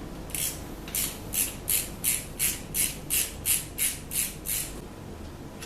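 Ratchet wrench clicking in about a dozen quick, evenly spaced back-strokes that stop about three-quarters of the way in, as a bolt is spun out during alternator removal.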